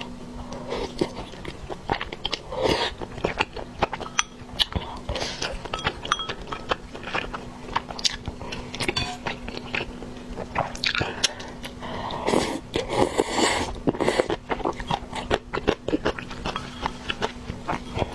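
Close-miked eating: wet chewing and lip-smacking of soft flat noodles and rice cakes in sauce, with many small clicks throughout and a longer slurp of noodles about two-thirds of the way through. A faint steady hum lies underneath.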